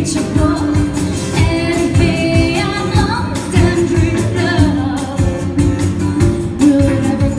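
A pop song with singing over a steady beat.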